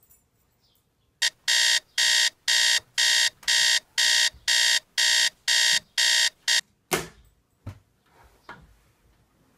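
Phone alarm beeping, a harsh electronic beep about twice a second, a dozen times, then stopping as it is switched off. A sharp knock follows just after, with a softer one shortly after that.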